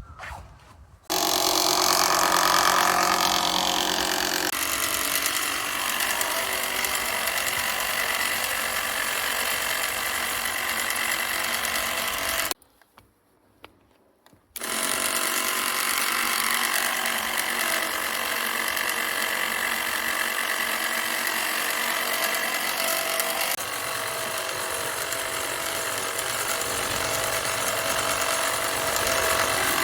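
Homemade lawn mower running, with its cutting blades rubbing and clattering against each other in a steady rattling din: the blade-to-blade mating is not yet properly adjusted. It starts about a second in, stops for a couple of seconds near the middle, then runs again.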